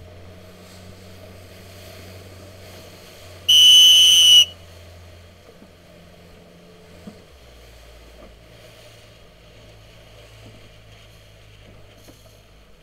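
One loud, steady whistle blast about a second long, a few seconds in, over the low, steady hum of a motorboat engine. The engine note changes about seven seconds in.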